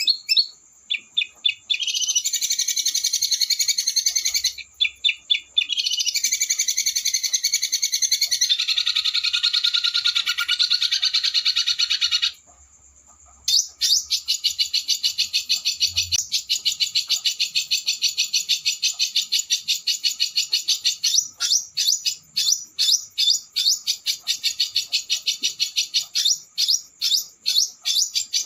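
Small songbird singing very fast, rapid-fire trills ('roll speed') mixed with choppy bursts of separate notes, loud and high-pitched. The song breaks off for about a second near the middle, then resumes.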